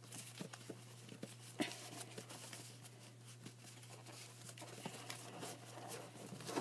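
Magic: The Gathering cards and their foil pack being handled by hand: faint rustling and scattered light clicks, with one sharper click about a second and a half in, over a steady low hum.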